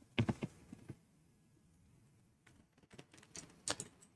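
A few small metallic clicks and taps of a metal bracket and screws being handled while the screws are started by hand, a short cluster at the start and a few more near the end, otherwise quiet.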